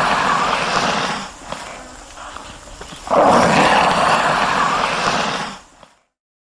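Komodo dragon hissing: two long, breathy hisses of about two and a half seconds each. The first is already under way at the start and fades about a second in; the second begins about three seconds in. The sound cuts off about a second before the end.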